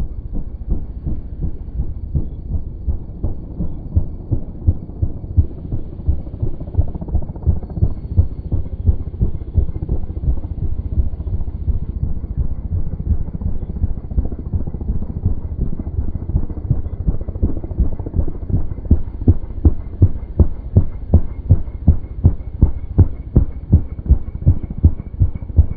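Helicopter rotor blades beating in a steady rhythmic pulse, with a faint high turbine whine. The beat grows louder in the second half as the helicopter comes closer.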